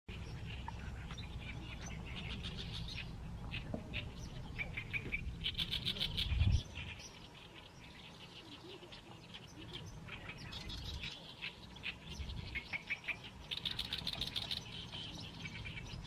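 Oriental reed warbler singing phrases of rapidly repeated chattering notes, pausing for a few seconds in the middle before starting again. Under the first part runs a low rumble that ends in a low thump about six and a half seconds in.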